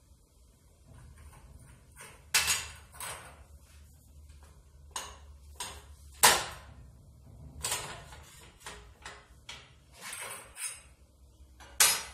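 Hand-cranked tube roller bending a galvanized steel tube into a ring: irregular metallic clunks and scrapes as the tube is fed through the rollers, the loudest about two seconds in, near the middle and at the very end.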